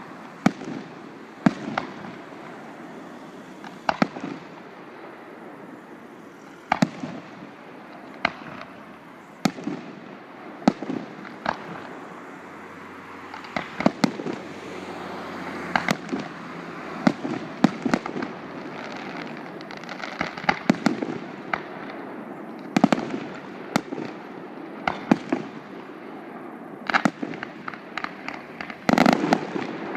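Aerial fireworks display: shells bursting with sharp bangs every second or two over steady crackling, the bangs coming faster and denser toward the end.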